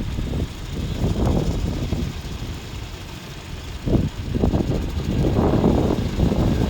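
New Holland T4.110f tractor running with its mower cutting the cover crop, a rough rumble that swells and falls unevenly, loudest near the end.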